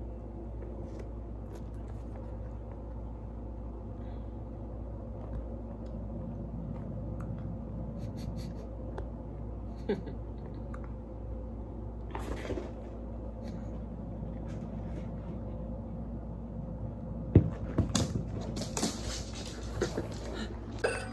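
Steady low room hum with occasional soft clicks, then a cluster of sharp knocks and rustles near the end from a hand-held phone being handled.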